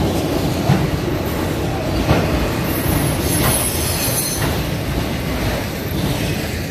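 Autorack freight cars rolling past on the rails: a steady rumble and wheel clatter, with a brief high wheel squeal around the middle. The last car goes by near the end and the sound begins to fade.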